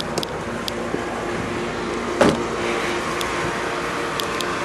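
A 2015 Ford Mustang EcoBoost Roush Stage 1's turbocharged 2.3-litre four-cylinder idling steadily, its exhaust note audible at idle. There is a single sharp thump about two seconds in.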